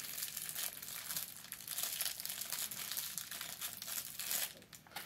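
Thin clear plastic wrapper of a small mochi squishy crinkling as fingers work at it to open it: a dense crackle for about four and a half seconds, then quieter near the end.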